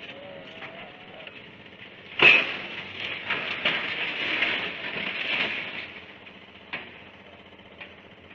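A sudden loud crash about two seconds in, followed by about three seconds of clattering that dies away, with two short knocks near the end.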